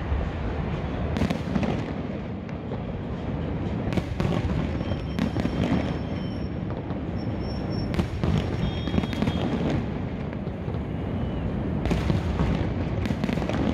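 Aerial fireworks going off in a continuous barrage of deep rumbling booms, with a few sharper cracks standing out every few seconds.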